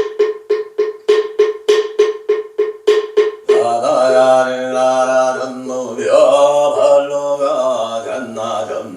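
Moktak (wooden fish) struck rapidly, about four strokes a second for the first three and a half seconds over a steady held tone. Then a man's voice holds two long, drawn-out chanted notes, the long-exhalation chanting of the dharani.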